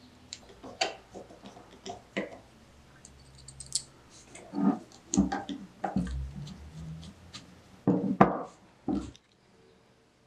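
Small metal parts of an antique telephone ringer being hand-assembled: the brass armature, clapper rod and coil frame click and knock against each other and the hard bench top, with irregular taps and one sharper knock a little after eight seconds.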